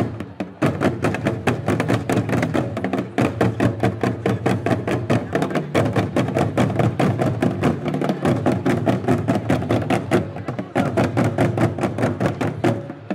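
Ensemble of Rwandan traditional ingoma drums, large wooden standing drums, played in a fast, even rhythm of many rapid strikes.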